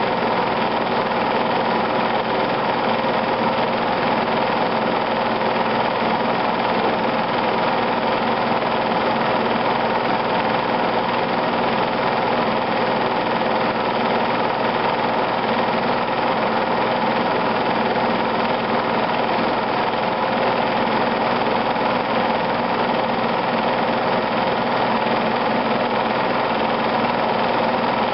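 Film projector running: a steady mechanical whir with a constant hum that does not change across the picture's scene cuts.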